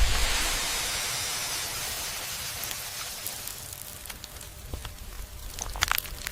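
A loud, even hiss, like sizzling or rain, that starts at once and fades over about five seconds, with a few sharp clicks near the end.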